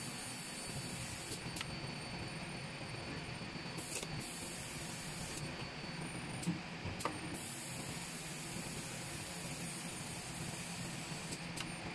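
Automated lithium-ion pouch cell assembly machine running: a steady hiss with a few light mechanical clicks, two sharper ones about halfway through.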